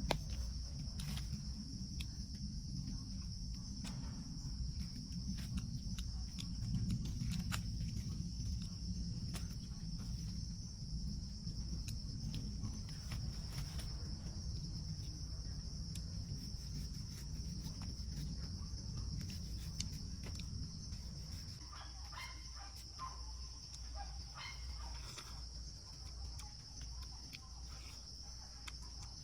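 Steady high-pitched drone of rainforest insects, crickets or cicadas, with scattered clicks and taps. A low rumble under it stops about three quarters of the way through, and a few brief chirps follow.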